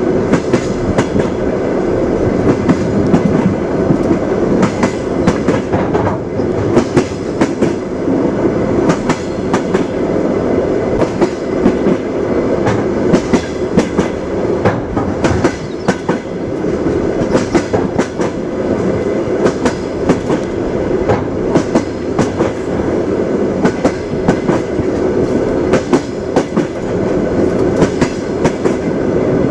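Train wheels clattering over rail joints: a steady rolling rumble with frequent sharp clacks.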